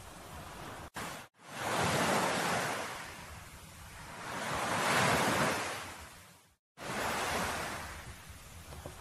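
Ocean waves washing in and out, each swell rising and falling over a few seconds. The sound cuts out briefly twice, about a second in and near seven seconds.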